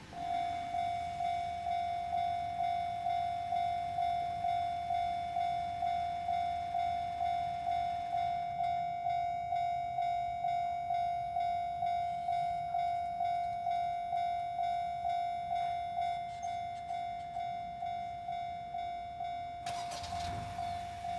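Japanese level-crossing warning alarm sounding its steady 'kan-kan' tone, about two strikes a second. Near the end, the noise of a train arriving at the crossing joins it.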